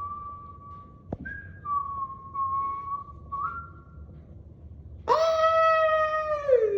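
A person whistling a few long, steady notes with small steps in pitch, with a sharp click about a second in. About five seconds in comes a louder, long drawn-out cry that holds steady and then slides down in pitch.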